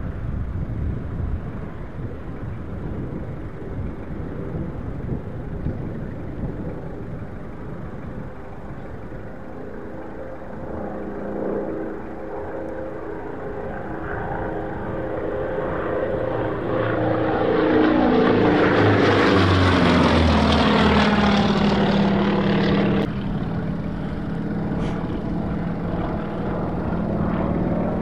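Propeller airplane approaching and passing low overhead: its engine grows louder and its note falls in pitch as it goes by, loudest about two-thirds of the way through. The sound then drops suddenly to a steadier, lower drone, with wind noise on the microphone before the plane draws near.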